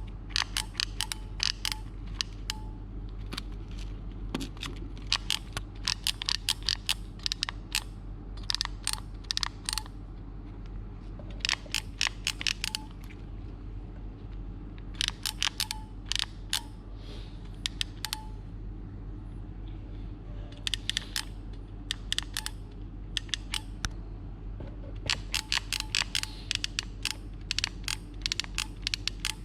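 Rapid runs of sharp mechanical clicks from the trigger and solder-feed mechanism of an 80 W automatic soldering gun, worked over and over as it sticks. A steady low hum lies underneath.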